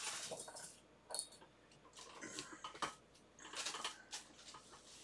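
Plastic bag crinkling as the metal parts of a third-hand soldering stand are unwrapped, in several bursts, with a few light metallic clicks as the chrome clips and arms are set down on a work mat.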